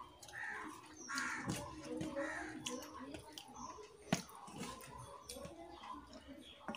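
Fingers mixing rice and curry in a steel plate, giving soft squishing with small clicks against the metal and one sharper click about four seconds in. A bird calls three times, harshly, in the first two and a half seconds.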